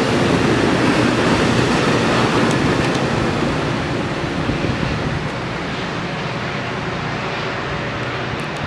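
MARC Penn Line train of bilevel passenger coaches going by and pulling away: a steady rush and rumble of wheels on rail that slowly fades as the cab car at its tail recedes.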